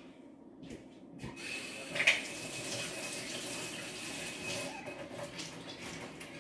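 Water running from a kitchen tap, starting about a second and a half in and running steadily for several seconds before stopping near the end, with one sharp knock shortly after it starts.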